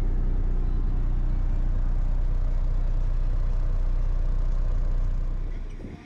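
Truck engine idling steadily, heard from inside the cab, a loud, even low hum that fades out near the end.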